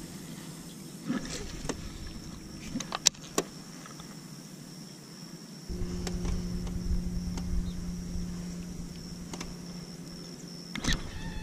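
A few sharp clicks from handling a baitcasting reel, then a little over halfway through a small boat's electric trolling motor switches on and hums steadily, with one more loud click near the end.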